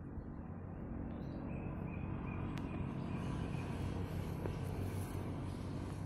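Outdoor background noise: a steady low rumble, with a faint run of short, evenly spaced high chirps in the middle and a single click.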